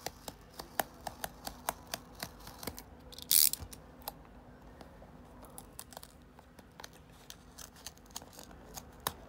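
A pen knife working at the flap of a cardboard booster box: a string of sharp clicks and ticks as the blade catches the card, then one brief loud rasp of cardboard being slit about three seconds in. After that come quieter clicks of fingers working the card flap open.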